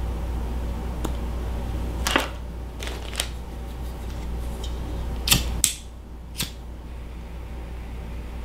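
A few short, sharp clicks of small tools at work: scissors snipping the end of a plastic fly tube, then a disposable lighter being struck to flame. A low steady hum underneath stops about halfway through.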